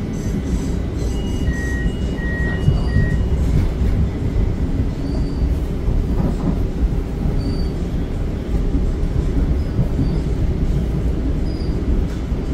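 Pittsburgh Red Line light-rail car in motion, heard from inside the car: a steady low rumble of wheels on rail and running gear. A few brief high tones sound together between about one and a half and three seconds in.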